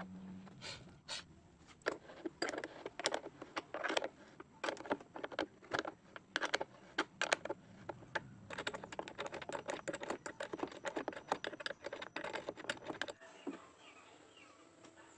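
Small steel spanner clicking and scraping on a nut and washer as an engine-mounting bolt is tightened by hand: an irregular run of sharp metal clicks, several a second, that stops about thirteen seconds in.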